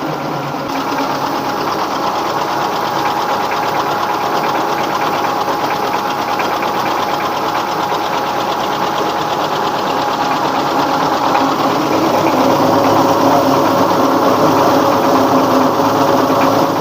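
Rice mill running steadily: a 24 hp dompeng single-cylinder diesel driving the husker (PK) while paddy is being hulled, with a dense mechanical clatter. The tone of the machinery shifts and it grows slightly louder about twelve seconds in.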